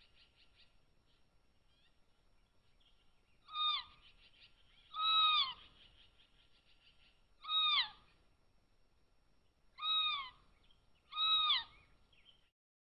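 Cougar kittens whistling: five short, high chirping calls, each dropping in pitch at the end, a second or two apart.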